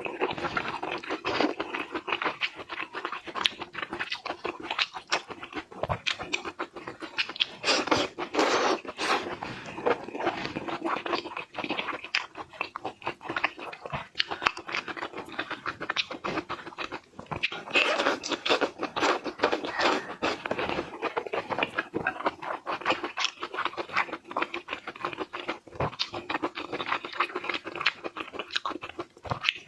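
Close-miked eating sounds: a person chewing and crunching food, with a dense run of quick, crackling clicks throughout.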